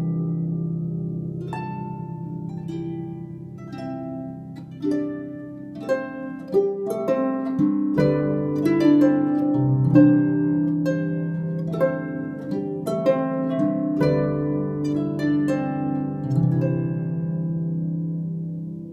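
Lever harp played with the fingers: a slow tune of plucked notes ringing over sustained bass notes. The playing thins out near the end, and the last notes are left to ring and fade.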